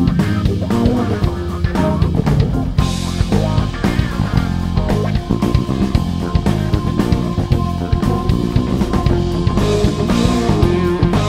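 Live instrumental band playing: electric guitar over bass guitar and drum kit, with cymbals swelling about three seconds in and again near the end.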